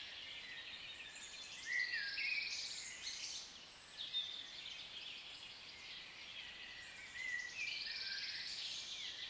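Wild birds singing and calling together over a steady high hiss of background noise. A louder song phrase stands out about two seconds in, and a similar phrase comes again near the end.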